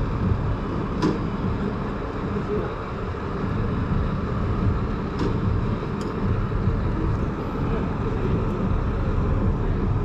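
Heavy construction machine's diesel engine idling steadily, a low rumble with a few faint clicks.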